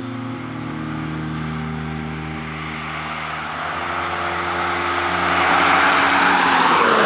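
A car approaching and driving past. The sound of its engine and tyres builds over the second half and is loudest near the end.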